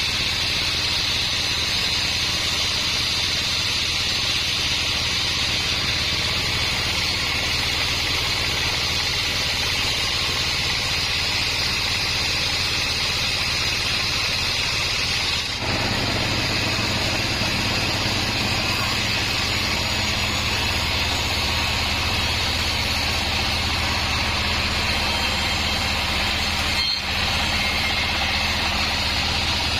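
Band sawmill running steadily, a continuous machine sound with a high hiss over a low hum, interrupted by two brief breaks, about halfway through and near the end.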